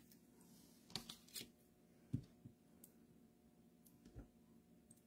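Faint, scattered clicks and taps of craft supplies being handled on a tabletop, about half a dozen in all, the clearest about one and two seconds in.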